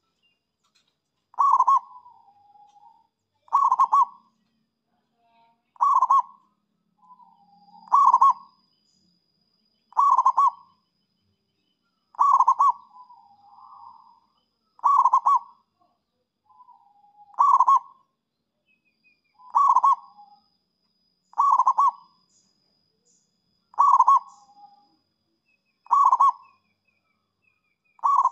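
Zebra dove (perkutut) cooing: a short burst of cooing notes repeated about every two seconds, each burst followed by a softer, lower trailing note.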